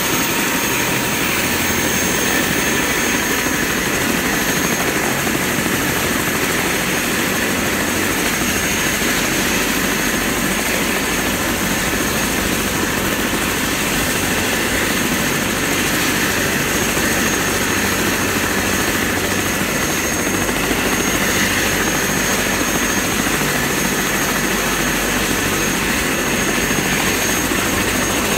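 Airbus/Eurocopter AS350 Écureuil helicopter running on the ground during start-up, its single turboshaft engine and turning main and tail rotors giving a steady, even noise with a thin high whine.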